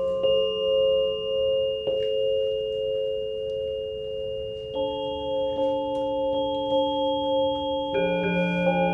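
Music of an electro-acoustic sound installation: steady held tones layered into chords, the chord changing about two seconds, five seconds and eight seconds in.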